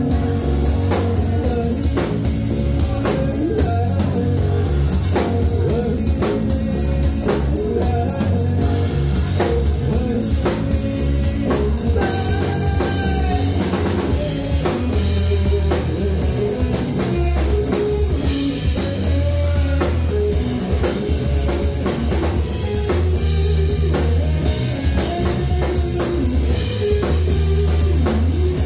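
Live rock band playing an instrumental passage: an electric guitar plays lead lines with bent notes over a drum kit, keyboards and a heavy low end.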